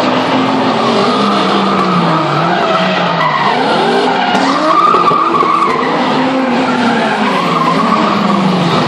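Two cars drifting in tandem, their engines revving up and down over and over as the throttle is worked through the slides, with tyres skidding on the tarmac.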